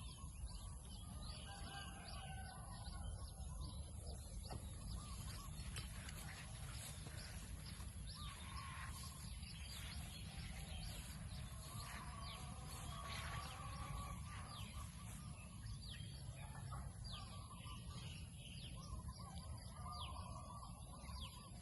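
Assorted small birds chirping and calling with many short, quick notes, over a low steady rumble.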